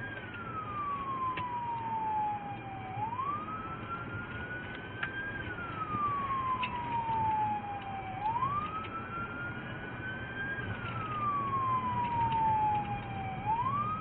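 Police car siren on the wail setting, one tone sliding slowly down and then climbing back up, a full cycle about every five seconds, heard from inside a moving car.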